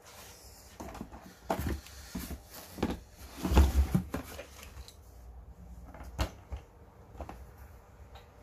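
Irregular knocks and clatters, like objects being handled and set down, loudest about three and a half seconds in.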